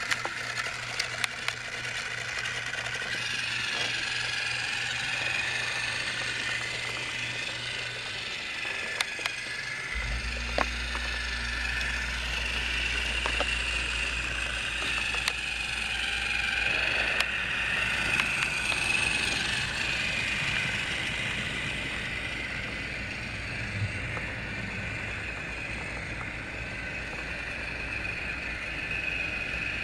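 TrackMaster motorized toy train engine running along plastic track, its small geared motor whirring steadily with scattered sharp clicks from the wheels and track.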